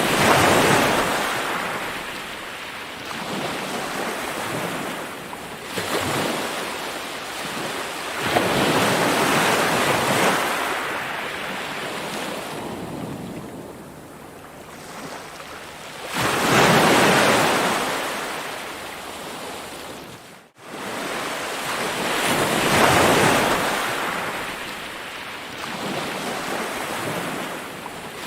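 Ocean waves breaking and washing on a shore, the surf swelling and ebbing every few seconds. About two-thirds of the way through, the sound cuts out for an instant.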